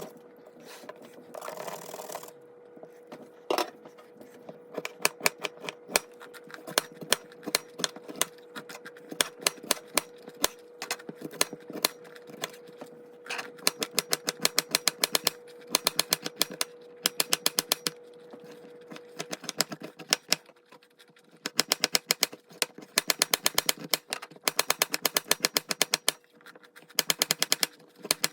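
A metal utensil tapping and clattering against a pan in quick runs of sharp taps, with short pauses between the runs, as the riced cauliflower is stir-fried. A steady hum runs underneath and drops out for a while past the middle.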